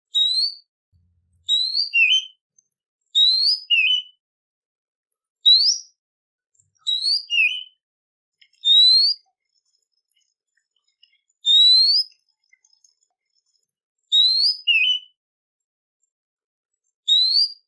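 A songbird repeats a short whistled phrase about nine times, with pauses of one to three seconds. Each phrase is a rising whistle, often followed by a short lower note.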